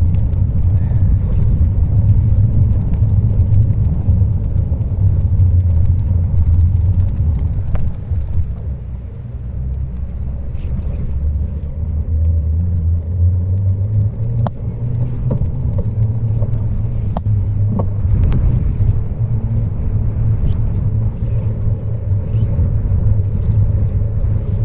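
Steady low rumble of wind buffeting the microphone and tyres running on the road while cycling, with a few sharp clicks or rattles in the middle stretch.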